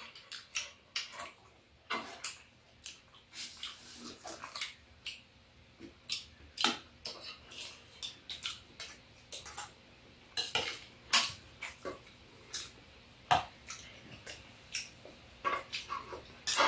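Chopsticks and a spoon clinking and tapping against bowls and a stainless-steel serving bowl on a metal tray during a meal: irregular light clicks, a few at a time, without any steady rhythm.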